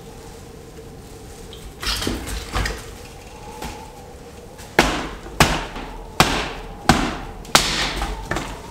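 Hatchet chopping dry branches on a wooden floor: five sharp strikes about two-thirds of a second apart in the second half. Earlier, a few lighter knocks and rustles of sticks being handled.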